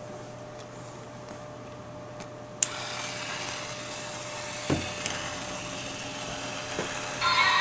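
A toy figure being handled and set down on a wooden table: a sharp click about two and a half seconds in, then a steady hiss, and a single knock a little past halfway as the figure is stood on the tabletop.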